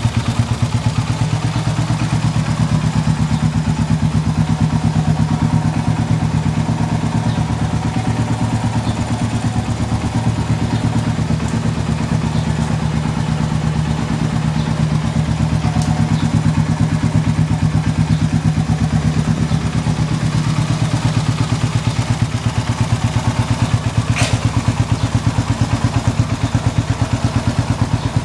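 Suzuki LS650's single-cylinder four-stroke engine running steadily at idle through a Cherry Bomb glasspack muffler, with an even, deep exhaust beat and no revving.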